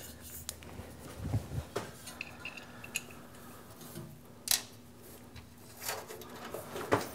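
Scattered light metallic clicks and clinks of nuts, washers and tools being handled while fitting the nuts onto an electric motor's mounting studs, over a faint steady hum.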